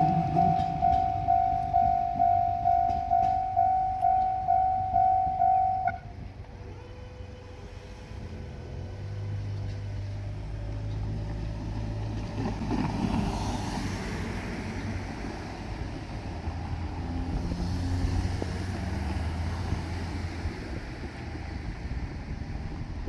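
Japanese railway level-crossing warning bell ringing in rapid repeated electronic dings, about two and a half a second, stopping suddenly about six seconds in: the sign that the train has cleared the crossing. After it comes a low engine rumble from vehicles, rising and falling.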